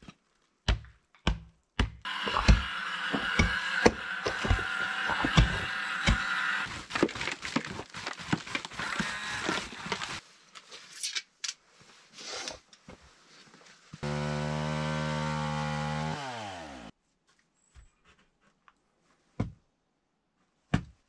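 Sharp knocks of a hand tool chipping ice off the ground, then a few seconds of dense tool noise with knocks, scattered taps and clicks, and a power tool motor running steadily for about three seconds before winding down in pitch as it stops.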